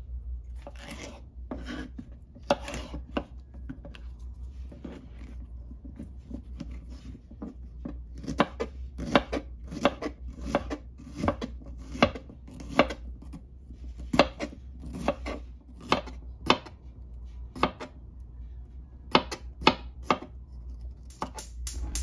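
Kitchen knife chopping nopal cactus paddles into strips on a plastic cutting board: a run of sharp, uneven chops, about two a second in the busiest stretches, over a low steady hum.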